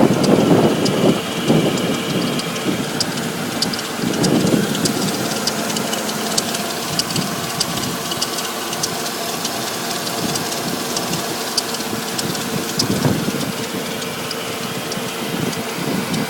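1999 Audi S8's 4.2-litre V8 engine running, with a repeated sharp ticking over the engine sound. The ticking is a malfunction whose cause the owner cannot place.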